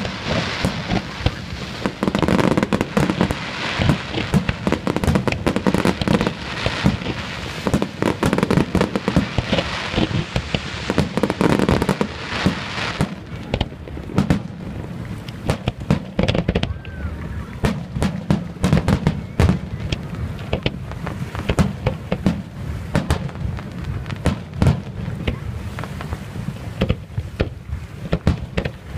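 Fireworks display: aerial shells and low fountains bang and crackle in rapid succession, a dense barrage for about the first thirteen seconds, then thinner and more spaced-out bangs.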